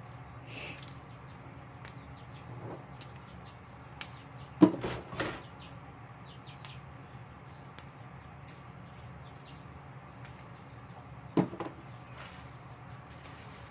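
Kitchen handling sounds as vegetables are moved and set aside: scattered light clicks and taps, with two louder knocks, one about four and a half seconds in and one near the end, over a steady low hum.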